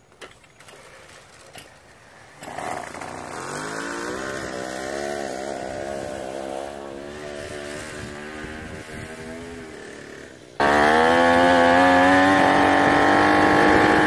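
Small 27cc Troy-Bilt two-stroke weed eater engine driving a friction-drive bicycle. It starts buzzing about two and a half seconds in, wavering in pitch and slowly getting quieter. About ten and a half seconds in, a much louder, higher and steadier buzz cuts in, heard close up from on the bike. The builder says this engine badly needs a tune.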